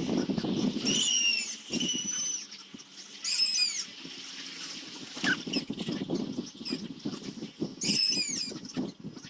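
A small bird chirping: short curved calls about four times. Underneath them runs an uneven low scraping or rustling noise.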